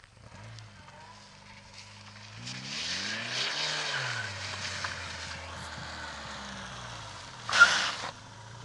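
Ford Sierra 2.0i's four-cylinder engine running on LPG, revving up and back down as the car slides on loose sand, with a hiss of tyres and grit in the middle. There is a short loud burst of noise near the end as the car pulls up close.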